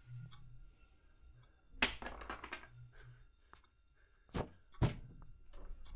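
Several dull thumps and knocks: a short cluster of them about two seconds in, then two single sharp knocks a second and a half from the end.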